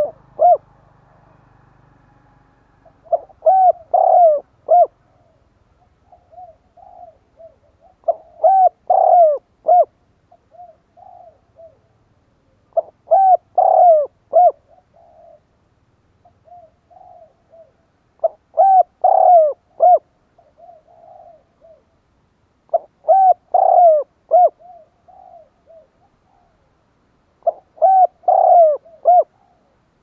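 Spotted dove cooing. Six phrases of several low coos come about every five seconds, with fainter short coos in between.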